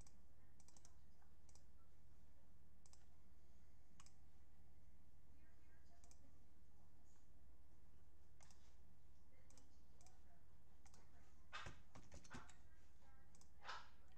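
Computer mouse clicks and keyboard keystrokes, sparse at first, then in quick clusters of louder clicks about twelve seconds in and again near the end, over a low steady hum.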